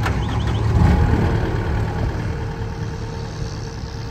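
Caterpillar 259D compact track loader's four-cylinder diesel engine running steadily at a low, idle-like speed, a little louder about a second in.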